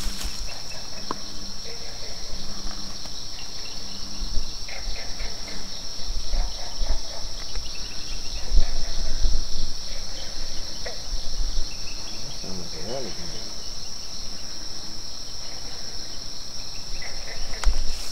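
Steady, unbroken high-pitched trilling of night insects, a cricket chorus, with low rumbles on the microphone now and then in the middle.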